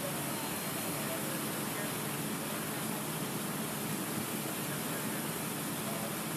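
Steady hiss of fountain water running.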